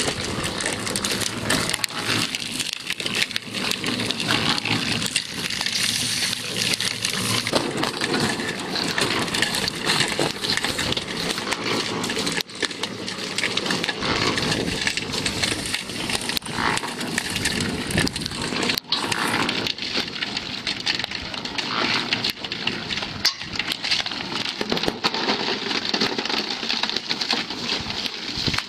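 Drum concrete mixer turning, with a crumbly cinder-block mix of slag, ash, sand and cement tumbling inside it: a steady, dense gritty crackling and rattling.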